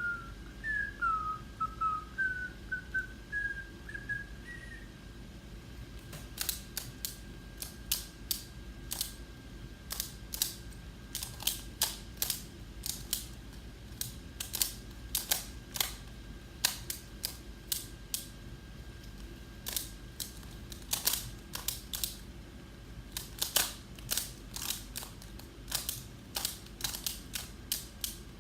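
A person whistles a few short notes. Then, from about six seconds in, comes fast, irregular clicking: a 3x3 Rubik's Cube's plastic layers being turned during a speed solve.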